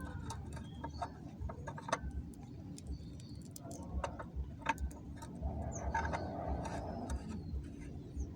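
Scattered small clicks and light taps, with a few low knocks, from tools and metal parts being handled while a water pump is assembled.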